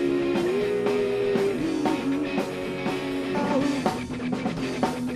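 Rock music instrumental passage: guitar holding and bending sustained notes over a steady drum beat.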